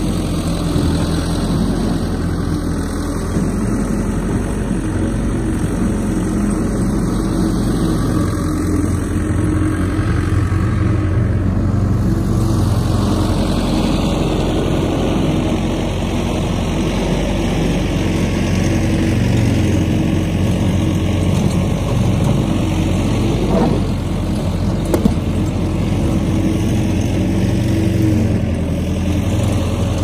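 Skid steer's diesel engine running steadily close by, its sound shifting slowly as the machine moves around.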